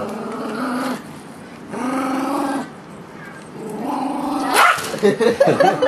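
Small long-haired dog growling while guarding a wrapped present: three held growls of about a second each, then a sharp bark and a quick flurry of snarls and barks near the end.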